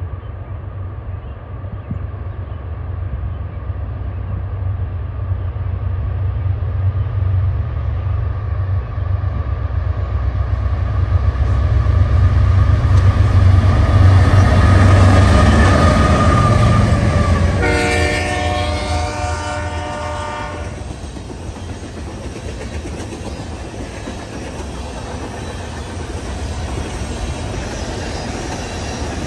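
BNSF freight train passing: the diesel locomotives' engines grow louder to a peak as they go by, then the horn sounds one chord for about three seconds. After that come the steady rolling and clickety-clack of covered grain hopper cars on the rails.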